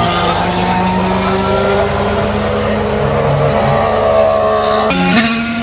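Formula 1 car engine running at high revs, its note climbing slowly, then an abrupt change in pitch about five seconds in.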